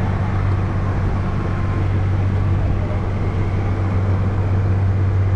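Motorboat engine running steadily with a constant low hum.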